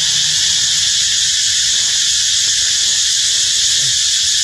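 Cicadas droning steadily in a loud, high-pitched, unbroken buzz.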